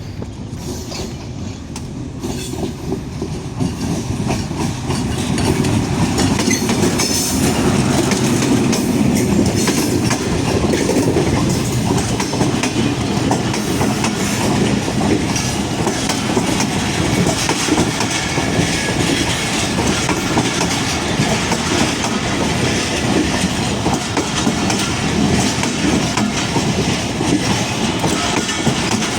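A train running on the track, its wheels clattering over the rail joints, growing louder over the first few seconds and then holding steady.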